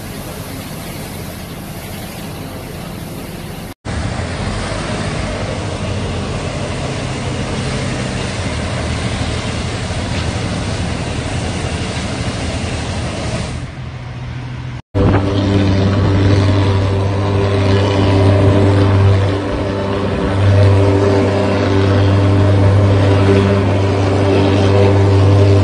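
Disinfectant-spraying tank truck's engine and pump running while a pressure hose sprays with a steady hiss. From about fifteen seconds in, a louder steady engine drone with a strong low hum, from a thermal fogging machine. The sound drops out twice, briefly, at the edits.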